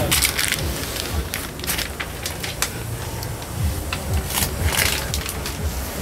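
Crackling and rustling handling noise from the truck cab's protective paper floor mat and plastic cellophane covers as the camera moves among them and rubs against the seat. It comes as irregular crackles over a low, uneven rumble.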